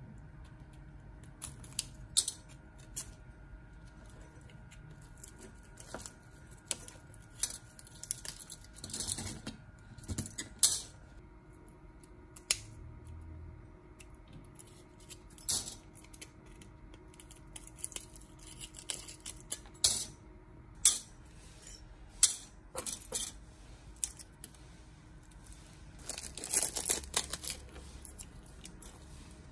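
Sporadic sharp clicks and taps of small tools and parts being handled at a workbench, with short scraping or rustling stretches about nine seconds in and again near the end.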